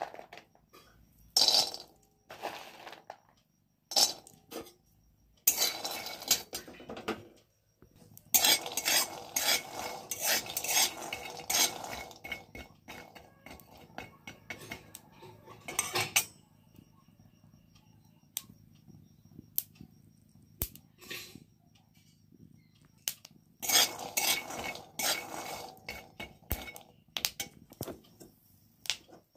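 Metal spatula scraping and stirring peanuts in a dry pan, the nuts rattling and clicking against the pan as they roast. It comes in bouts of busy stirring with quieter gaps of single clicks between.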